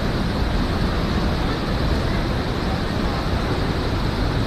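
Steady rushing roar of a waterfall, an even wash of noise with no breaks.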